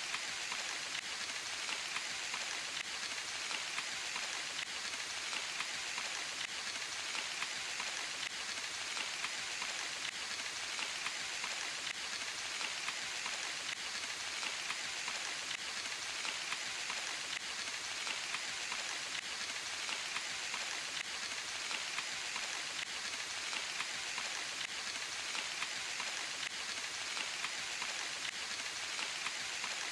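Steady rain in a forest: an even, unbroken hiss of many drops, with no let-up or single louder event.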